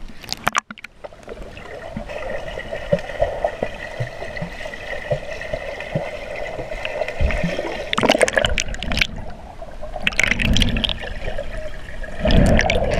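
Swimming-pool water heard from below the surface through a submerged camera: muffled, steady gurgling and bubbling, with three louder bursts of churning water in the second half as swimmers move and kick.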